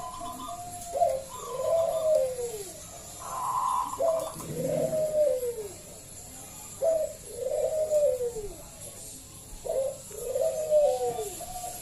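Zebra dove (local perkutut) singing its cooing song: about four repeated phrases, each a sharp note followed by a falling coo.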